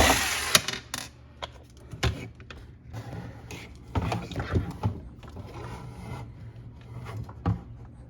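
Irregular clicks, knocks and scraping of refrigerator ice-dispenser parts being handled and fitted back in place, over a low steady hum.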